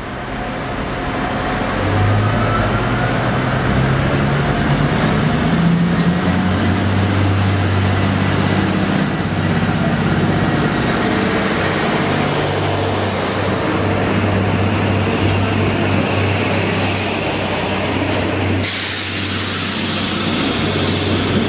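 PESA SA133 diesel railcar's engine running under load as it moves along the platform, with a whine that rises in pitch and then holds steady. About nineteen seconds in the sound changes suddenly to a louder hiss.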